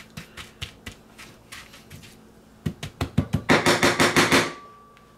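A metal spoon clinking and scraping against a metal sheet pan as it pushes coated sweet potato and apple chunks into the corners. The knocks are scattered at first. About three seconds in comes a louder, rapid run of taps, some six or seven a second, which stops near the end.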